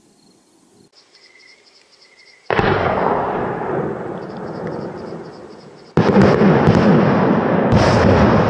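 100mm aerial firework shell: a sharp launch bang from the mortar about two and a half seconds in that echoes away, then a second, louder bang about three and a half seconds later as the shell bursts into its peony and keeps rumbling and echoing. Crickets chirp faintly before the launch.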